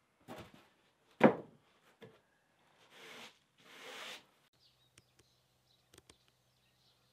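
Debris being handled while a barn is cleared out: a loud knock about a second in among smaller knocks, then two scraping swishes, then a few faint clicks.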